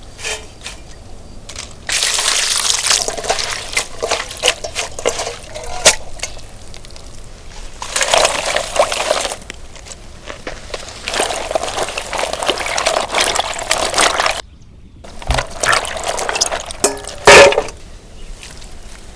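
Water being poured in four separate pours of one to three seconds each, with small clicks and knocks between them and one sharp loud knock near the end.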